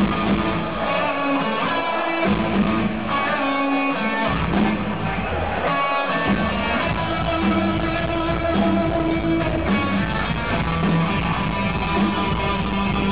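Rock band playing live, electric guitars over bass and drums, heard from the audience. The deep bass end comes in strongly about two seconds in.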